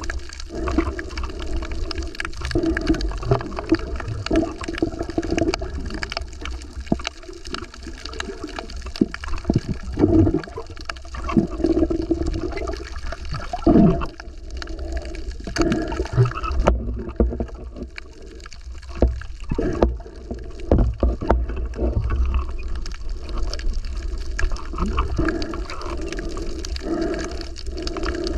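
Seawater sloshing and gurgling, with frequent small clicks and knocks over a steady low rumble. It eases off briefly about two-thirds of the way through.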